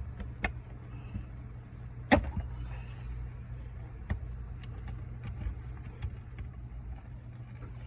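Scattered sharp clicks and scrapes of a hand tool working under brittle asphalt roof shingles to pry out their nails, the loudest about two seconds in, over a steady low hum.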